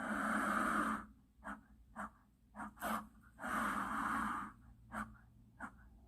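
Gila monster hissing: two long, breathy hisses of about a second each, the second starting about three and a half seconds in, with faint clicks between them.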